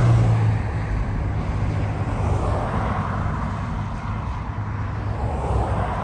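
Cars driving past on a highway: tyre and road noise swells as one passes near the start and another near the end, over a steady low rumble.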